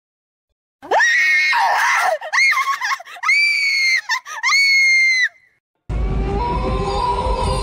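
Loud, high-pitched screaming from a haunted-house scare scene: several screams in a row with short breaks, starting about a second in and stopping near five seconds. After a brief gap a steady low droning with a few held tones sets in.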